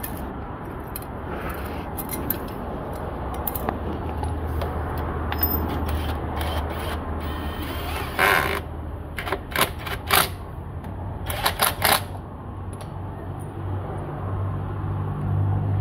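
Cordless electric drill-driver spinning in several short bursts, over a steady low hum.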